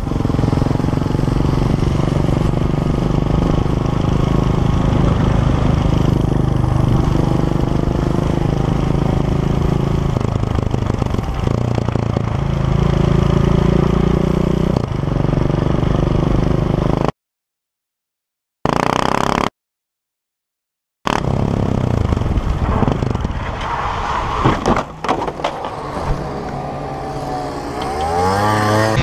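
Motorcycle engine running steadily under way, recorded from the rider's helmet camera. The sound cuts out twice for a second or so in the middle, and the engine revs rise and fall near the end.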